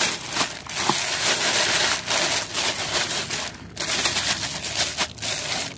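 Clear plastic bags of paddy rice crinkling, with the grains rattling inside, as they are shaken and squeezed by hand to spread the Trichoderma culture through the grain. Quick, dense crackling with a brief lull about three and a half seconds in.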